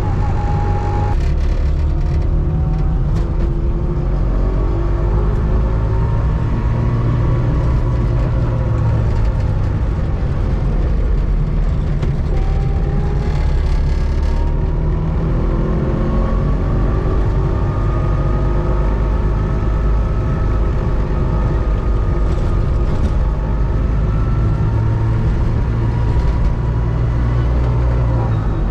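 1984 Trabant 601S's air-cooled 594 cc two-stroke two-cylinder engine running under way. Its note drops suddenly about a second in, then rises and falls several times as the car accelerates and eases off.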